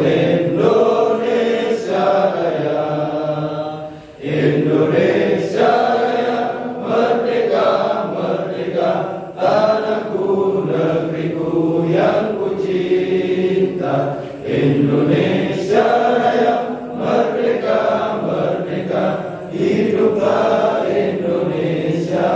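A group of men chanting Islamic devotional verses together in unison, in long sung phrases with brief pauses for breath.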